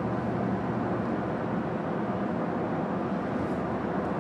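Steady road and engine noise heard inside a moving vehicle's cabin: an even rumble of tyres and engine.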